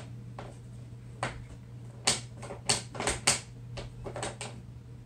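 A series of about ten light, sharp clicks and taps at irregular intervals, bunched together in the middle. A steady low hum runs underneath.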